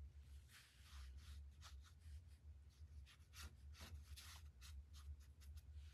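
Faint paintbrush strokes on watercolour paper: a string of short, light scratching strokes over a low steady hum.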